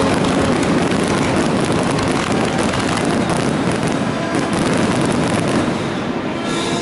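Fireworks going off: a dense, continuous crackle of many small overlapping bursts, easing slightly near the end.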